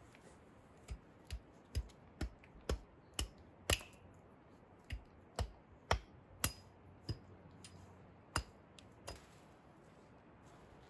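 A run of about fifteen sharp cracks or knocks, irregularly spaced at roughly two a second, starting about a second in and stopping near the end.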